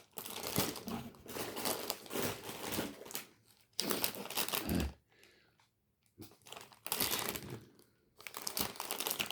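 Plastic snack wrappers crinkling as the packets are handled, in several bursts with a short pause about halfway through.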